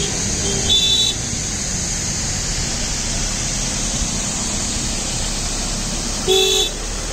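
Vehicle horn giving two short toots, about five and a half seconds apart, over a steady background noise.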